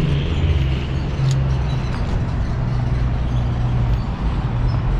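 City street traffic, with a motor vehicle's engine running close by as a steady low hum. A brief click sounds about a second in.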